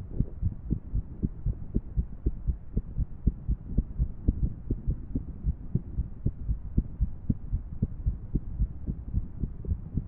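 A woman's heartbeat heard close up, a continuous run of low lub-dub thuds, with the beats falling in an irregular rhythm.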